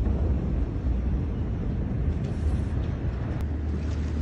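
Steady low rumbling noise with no sharp bang. About three and a half seconds in it changes abruptly to a steadier low drone.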